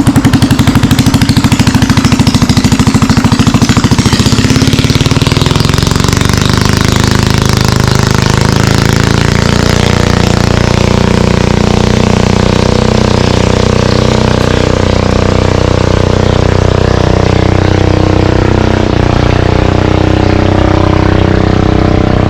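Engine of a passing motorboat running loud and close: a fast throbbing for the first few seconds that settles into a steady drone.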